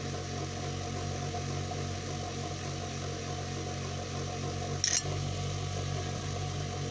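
Dremel rotary tool running at a steady speed, polishing a metal lockpick blade, with one brief sharp hiss about five seconds in.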